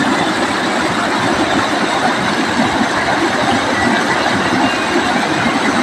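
Steady, loud rush of river water pouring over a low rocky ledge in white-water rapids.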